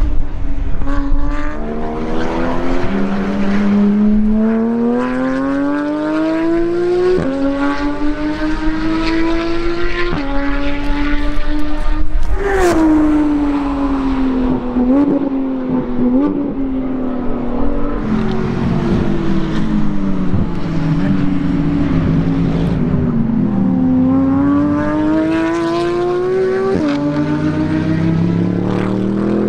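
Porsche 991 GT3 RS's naturally aspirated flat-six with an iPE exhaust accelerating hard, its pitch climbing through quick upshifts before it passes about twelve seconds in. In the second half a Mercedes-Benz SLS AMG GT3 race car accelerates past, its engine note lower in pitch.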